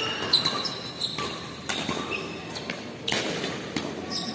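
Badminton doubles rally: sharp racket strikes on the shuttlecock and footfalls on the court, with short high-pitched sneaker squeaks on the court floor.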